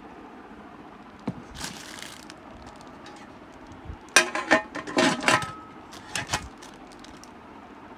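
Stainless steel lid of a Bergner triply pressure cooker being handled: a loud run of metal clinks and knocks, some ringing briefly, about four seconds in, with two more near six seconds. A single click and a short rustle come after about a second.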